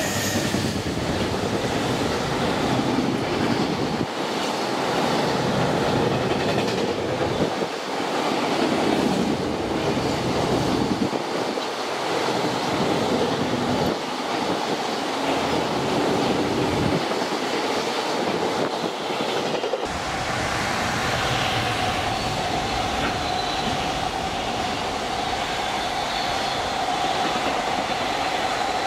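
A JR Freight EF210-300 electric locomotive passes close at speed with its container freight train. The wagons then rumble and clatter rhythmically over the rail joints. About twenty seconds in the sound switches abruptly to another train's container wagons running past more evenly, with a steady high-pitched tone over the rolling noise.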